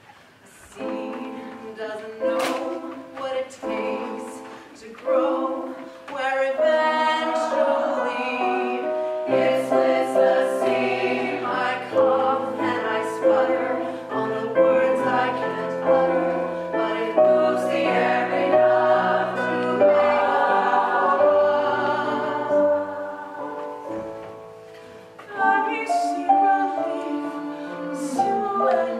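Several women singing together in harmony, a lower part joining about nine seconds in. The singing drops away briefly near the end and then comes back.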